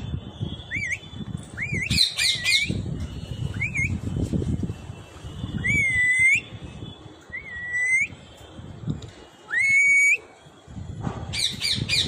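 Alexandrine parakeet whistling: a string of clear whistles, each a quick upward hook into a held note, the longest lasting about half a second around six and ten seconds in. Short bursts of quick chirps come about two seconds in and again near the end.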